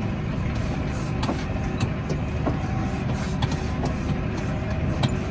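Tractor engine running steadily while spreading lime, with a few light clicks and rattles.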